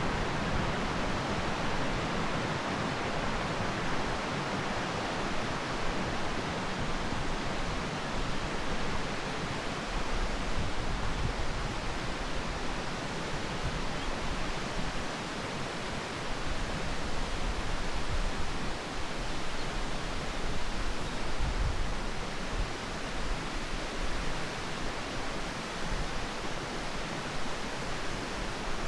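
Steady rushing outdoor ambience, an even hiss over all pitches with uneven low rumbles underneath.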